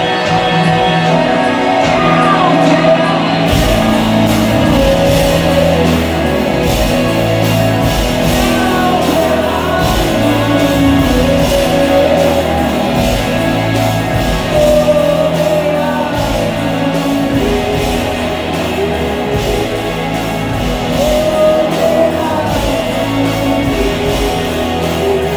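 Rock band playing live: a male voice singing over electric guitar, bass and drums. The drums and bass come in about three and a half seconds in, filling out what was guitar and voice.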